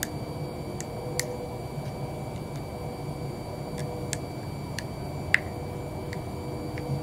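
Scattered light clicks and taps of car parts being handled, about a dozen, the sharpest about five seconds in, over a steady low hum.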